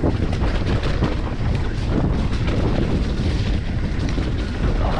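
A mountain bike running fast down a wet dirt trail: wind buffets the microphone over a low rumble of tyres on the ground, with many small knocks and rattles from the bike as it goes over bumps.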